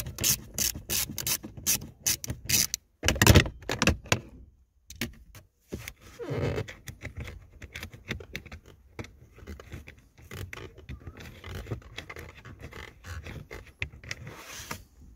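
Socket ratchet wrench clicking in a steady run, about three clicks a second, as an 8 mm screw is undone. A loud knock comes about three seconds in, then quieter scraping and rubbing against the dashboard's plastic trim.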